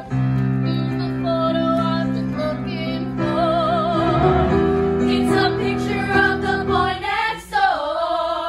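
Several women's voices singing together, with vibrato on held notes, over sustained instrumental chords. The chords drop out about seven seconds in, and a voice slides down in pitch near the end.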